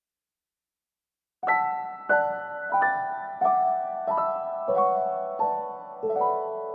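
Background music: solo piano playing a slow descending melody, one note about every two-thirds of a second, starting after about a second and a half of silence.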